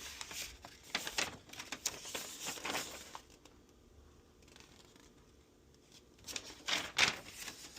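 Paper and plastic crinkling and rustling as a plastic model kit's instruction sheet and parts bags are handled. It goes for about three seconds, then pauses, and picks up again with a few louder crinkles near the end.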